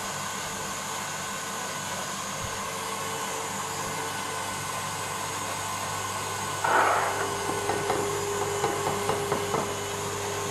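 Stand mixer running steadily, whipping eggs and sugar nearly to the ribbon stage. About two-thirds of the way through, a scrape and then a run of small scrapes and taps as an orange is zested on a microplane grater.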